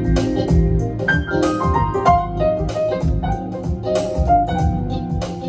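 Instrumental music: a keyboard melody over a bass line, its notes stepping downward in pitch about a second in.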